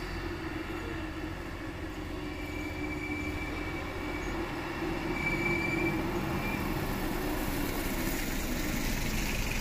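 Diesel engines of a heavily loaded truck labouring slowly uphill and a wheel loader working, growing louder as the truck approaches. A thin steady whine runs through the middle, and a rushing hiss builds near the end.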